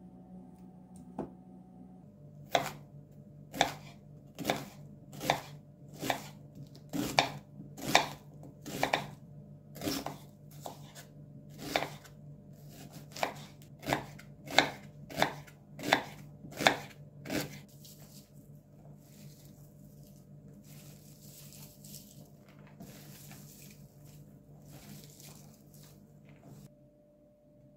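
Kitchen knife slicing an onion on a bamboo cutting board, each cut ending in a sharp knock of the blade on the board, about once a second for some fifteen seconds. Then softer, irregular rustling as hands pull the sliced onion rings apart.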